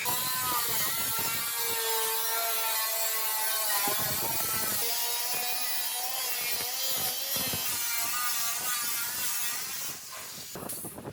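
Power grinder working the rusted steel of a car's rocker panel, its whine wavering in pitch as it bites into the metal. It stops about ten seconds in.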